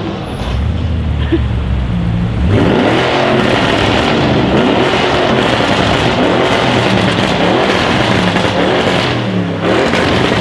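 Audi RS6 C7's twin-turbo V8 through a decatted Milltek exhaust, loud: a low steady note at first, then about two and a half seconds in it opens up hard, the engine note climbing and dropping back several times.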